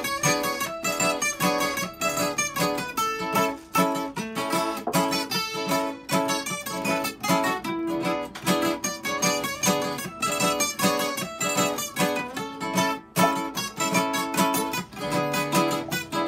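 Two acoustic guitars playing an instrumental tune together, with quick plucked notes over chords, and no singing.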